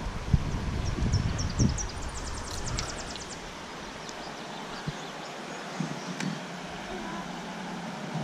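Wind buffeting the microphone over the steady rush of a shallow creek, the gusts dying down about three or four seconds in. Between about one and three seconds in, a small bird sings a quick series of high chirps that speeds up into a trill.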